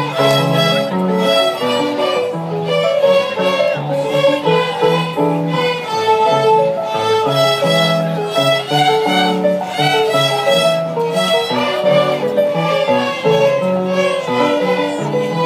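A group of young violin students bowing a simple tune together in unison, the notes changing in a steady, even rhythm, with deeper notes sounding underneath.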